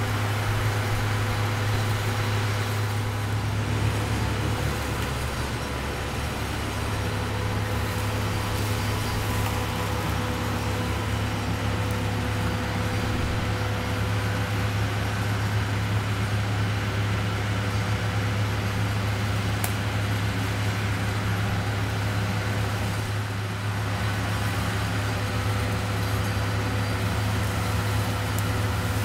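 A heavy engine running steadily at one speed, with a deep hum and no revving.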